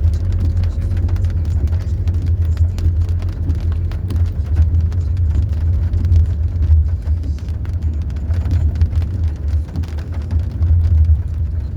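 Car towing a camping trailer, heard from inside the cabin: a steady low engine and road rumble with a constant patter of small clicks and rattles.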